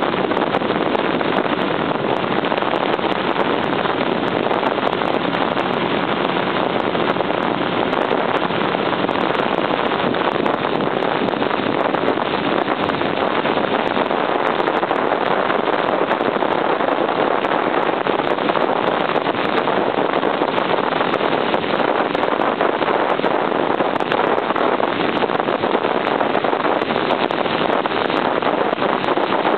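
A 1978 Honda CB750's inline-four engine running at a steady road speed, mixed with a constant rush of wind over the microphone; the level and tone stay even, with no revving or gear changes.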